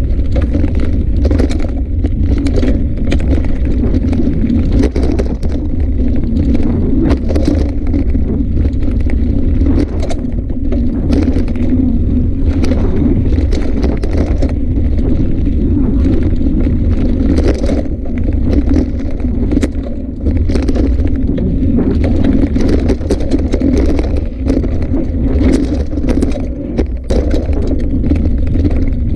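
A bicycle rolling fast along a dirt forest trail, heard from a handlebar-mounted camera. There is a loud, steady low rumble of tyre and frame vibration, with frequent knocks and rattles as the wheels go over roots and bumps.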